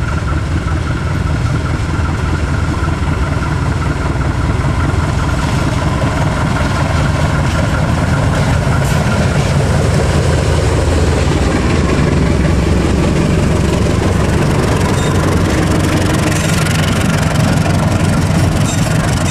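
KAI CC201 diesel-electric locomotive running under power as it passes close by, a loud, steady, low diesel engine sound. Near the end the coaches roll past, adding the hiss and clacks of wheels on the rails.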